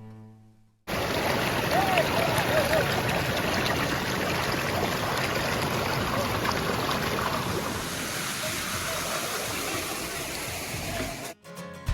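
Steady rush of flowing water from a forest stream or waterfall, starting about a second in, with faint voices of people briefly in it. Music comes back in at the very end.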